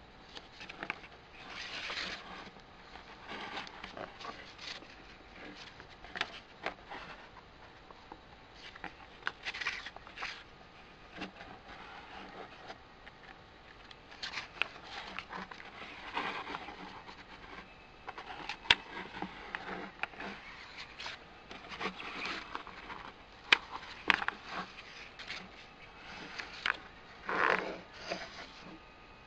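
Stiff pages of a hardcover photo book being turned and handled: repeated swishes and scrapes, with sharp clicks and taps throughout.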